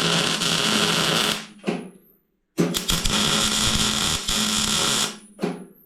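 MIG welder laying two short beads on steel, a steady crackling hiss with a low electrical hum, each run starting and stopping abruptly and lasting two to three seconds.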